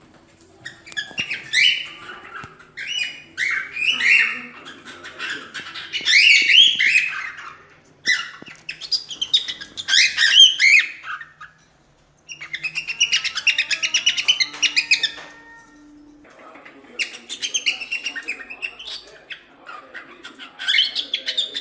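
Cockatiel singing: phrases of chirps and warbling whistles separated by short pauses, with a fast run of rapidly repeated notes in the middle.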